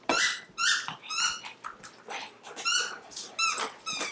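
A squeaker in a plush pineapple dog toy squeaking repeatedly as a Boston terrier chews it. The squeaks are short and high-pitched, a little under two a second.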